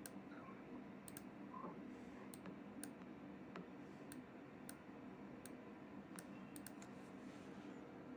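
Faint, irregular clicking on a computer, about a dozen clicks, over a low steady room hum: someone setting up a screen share.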